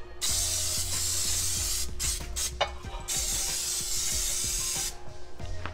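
Aerosol can of Pam baking spray hissing in two long bursts of nearly two seconds each as it greases metal bundt pans, with a short click between the bursts.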